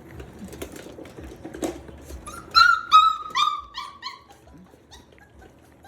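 Mastiff puppy whining: a run of about six high-pitched cries, each falling in pitch, starting about two seconds in, after a stretch of light scratching and clicking. It is the frustrated whine of a puppy that cannot yet get over a barrier to its food.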